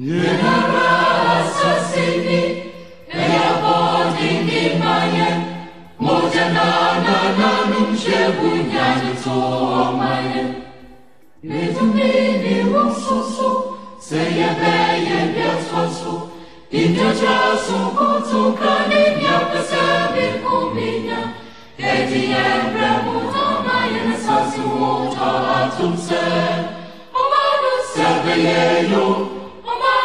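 A choir singing in phrases of a few seconds each, with short breaks between the phrases.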